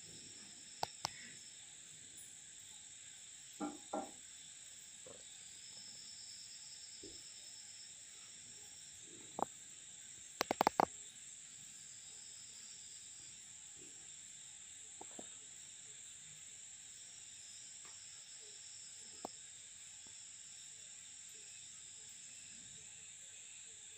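Scattered sharp taps and clicks of puppies' paws and claws on a ceramic tile floor as they paw at a grasshopper, the loudest a quick cluster about ten and a half seconds in. Under it runs a steady high-pitched chirring of night insects.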